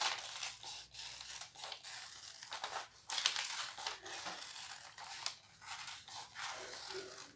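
Scissors cutting through folded brown kraft paper: a run of snips with the stiff paper rustling, louder about three seconds in.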